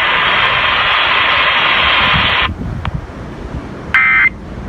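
Radio receiver hiss on an alert broadcast that cuts off sharply about halfway through. Near the end comes a short, loud burst of EAS digital data tones, the length of an end-of-message burst.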